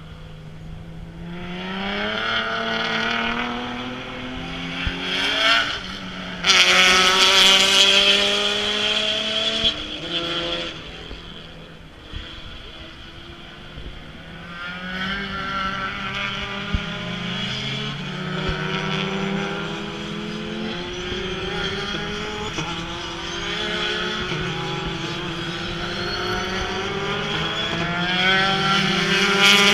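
Race car engines accelerating hard on the track, the pitch climbing and dropping back at each upshift as several cars go by in turn. One passes loudly and close about six seconds in, and another is getting louder near the end.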